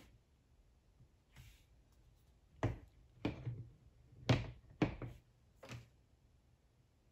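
About five dull knocks and taps from a tablet being set down on a desk and handled, after a couple of soft rustles.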